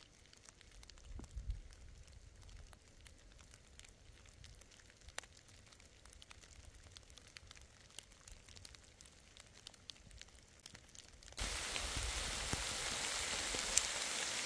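Pouring rain: for most of the stretch only faint scattered drips and ticks, then about eleven seconds in a steady, loud hiss of heavy rain starts abruptly.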